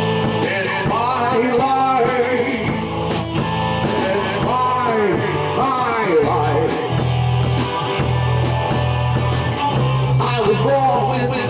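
Live rock band playing a song: electric guitar, electric bass holding steady notes, and a drum kit.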